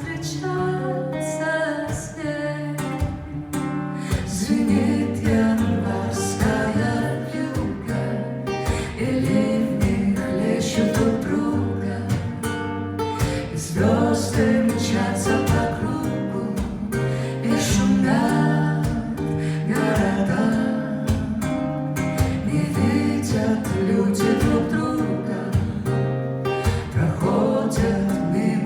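Live jazz performance: guitar playing with a low bass line moving note by note underneath, and a voice heard at times.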